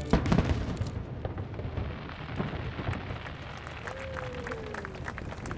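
Fireworks: a few heavy booms of shell bursts in the first half-second, then scattered crackling pops from the fading effects. A short falling whistle sounds about four seconds in.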